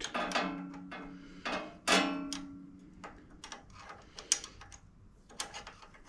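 Metal hand tools clicking and clinking on the valve rocker assembly of a Briggs & Stratton V-twin as a rocker adjusting nut is loosened and reset to set valve clearance. Two louder metallic clanks, at the start and about two seconds in, each ring on for about a second. Lighter scattered ticks follow.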